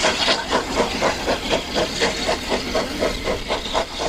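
Steam tank locomotive HM Dockyards No 19 chuffing as it hauls a freight train, its exhaust beats rapid and even at about four to five a second over a low rumble.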